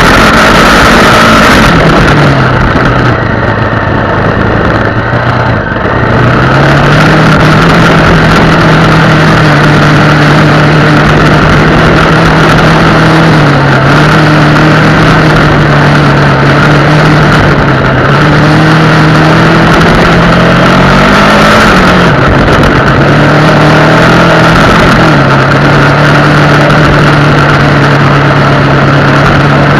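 Honda XR250 Tornado's single-cylinder four-stroke engine running, its pitch stepping up and down several times as the rider works the throttle. It is loud throughout, dipping briefly a few seconds in.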